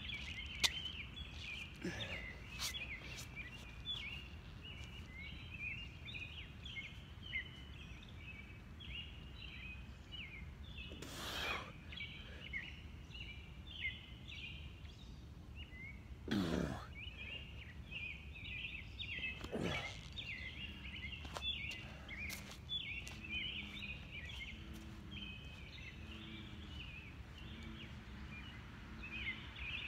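A dense outdoor chorus of high chirping calls, going on without a break. A few sharp clicks early on and three brief whooshes near the middle stand out above it.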